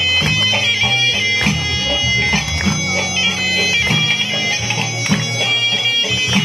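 Tunisian mezoued (bagpipe) playing a loud, reedy melody over a steady low drone, with regular percussion beats.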